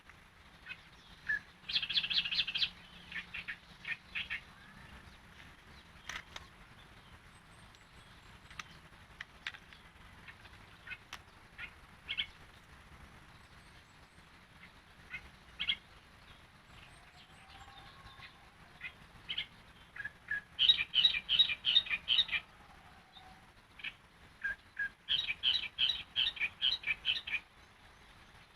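Yellow-vented bulbul (trucukan) singing: bursts of rapid notes, one about two seconds in and two louder ones near the end, with scattered single notes between.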